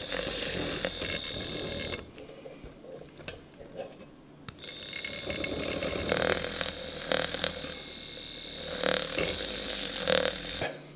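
Battery-powered handheld milk frother whirring as its wire whisk whips protein powder into milk in a mug, working it into a thick creamer. It runs for about two seconds, stops, then starts again about four and a half seconds in and runs until just before the end, with a few brief knocks along the way.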